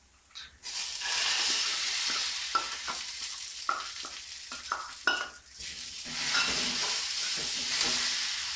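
Ground red rice batter sizzling in hot oil as it is poured into a kadai of fried onion and grated coconut, starting about a second in, with a few metal clinks and spoon scrapes against the pan as it is stirred in.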